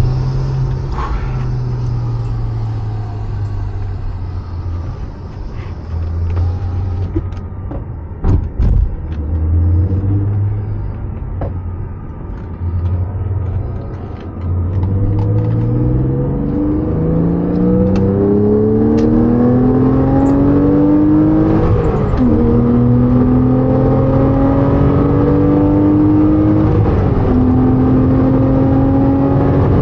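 Porsche 987.2 Cayman S's 3.4-litre flat-six engine at low revs in slow driving, with a few sharp clicks about a third of the way in. From about halfway it pulls up through the revs under acceleration, with two upshifts near the end.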